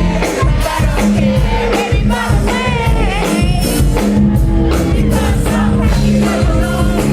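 Live pop music with a singing voice over a steady beat and heavy bass, recorded loud on a phone in the audience.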